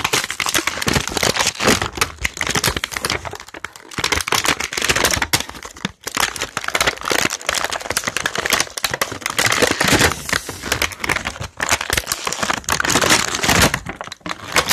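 Plastic and cardboard toy packaging crinkling and tearing with many sharp cracks and clicks as an action figure and its accessories are pulled out, going on in close, loud bursts with short lulls about four and six seconds in.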